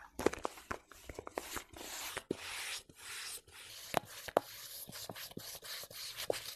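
Slotted stainless steel spoon pressing into and scooping through kinetic sand: grainy crunching and scraping, dotted with many sharp crackles as the packed sand breaks up.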